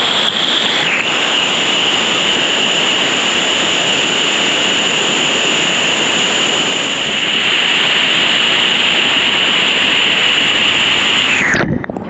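Steady roar of rushing water close to the microphone, which cuts off sharply near the end.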